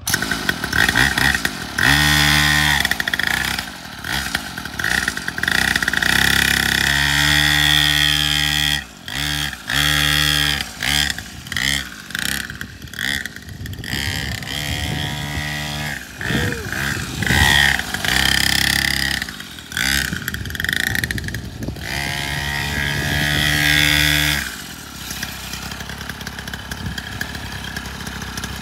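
Small 49cc pocket dirt bike engine revving, its pitch rising and falling as the throttle is opened and closed again and again, with short dips between. Near the end it drops to a quieter, steadier idle.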